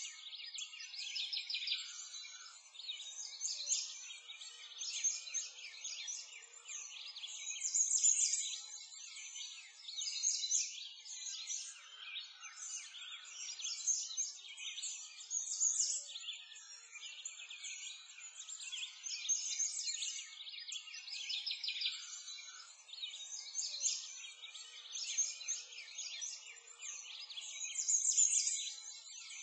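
A dense chorus of small birds chirping and twittering without pause, thin and high-pitched with nothing low beneath it, swelling and fading every second or two.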